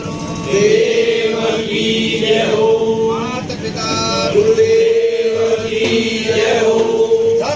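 Several voices chanting a Hindu prayer together, the phrases stretched into long held notes of a few seconds each.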